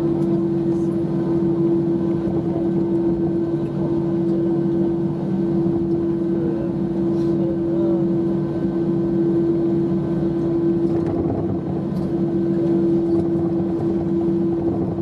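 Cabin drone of an Airbus A320 taxiing on the ground: a steady, unchanging hum with a lower rumble beneath it.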